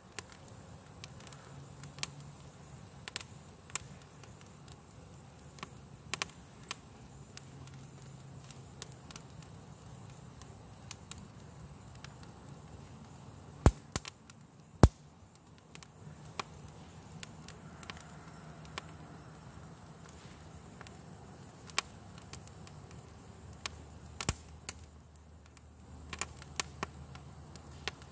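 Twig bundle fire crackling: irregular sharp pops and snaps from the burning sticks, with two loud pops about halfway through.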